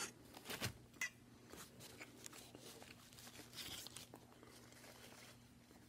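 Faint eating sounds: a mouthful of thick-bread sandwich being chewed, with a few soft clicks in the first second. A brief crinkle of paper wrapping comes a few seconds in.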